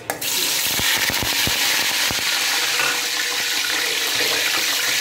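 Sliced onions dropped into hot oil in an aluminium pot start sizzling all at once and keep up a loud, steady sizzle as they are stirred with a slotted spoon, with a few knocks of the spoon on the pot in the first two seconds.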